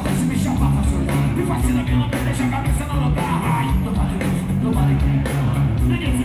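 Live rap-rock band playing loud through the PA: distorted electric guitar, bass and drums, with vocals shouted into microphones.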